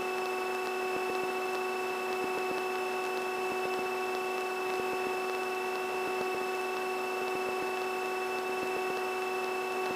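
Steady drone of the twin-engine Piper Aztec's engines and propellers, both running again after the left engine's restart. It is an even hum with several constant tones, heard from inside the cabin.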